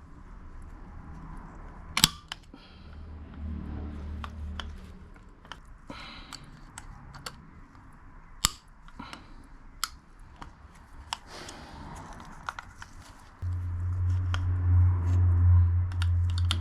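Small metal clicks and taps of a retaining clip being worked by hand into a Harley-Davidson clutch release mechanism, with a sharper snap about 2 s in and another about 8.5 s in. A low steady rumble comes in about 13.5 s in and is the loudest sound.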